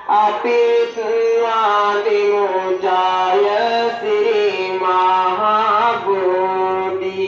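Chanting: one voice sings long, held notes that bend and waver in pitch, with brief breaks between phrases.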